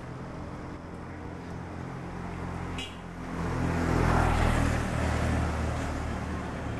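A motor vehicle's engine running on the street. It grows louder a little past halfway as the vehicle passes close by, then eases off.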